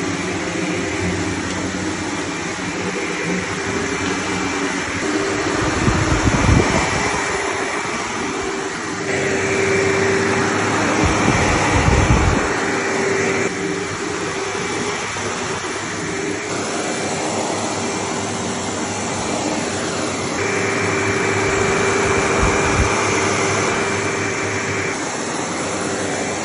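A 1995 Sebo X1 upright vacuum cleaner running during a floor test, a steady motor whine over rushing airflow. The tone shifts several times as it is worked across the floor, with low rumbles about six seconds in and again around twelve seconds.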